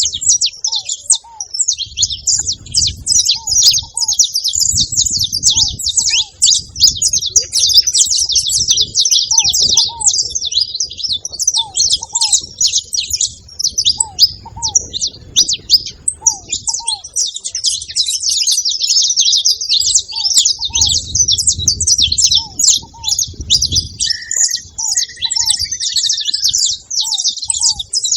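Saffron finch chirping in a rapid, unbroken stream of high notes. A lower, short two-note call repeats every second or two beneath it, with a brief lower trill near the end.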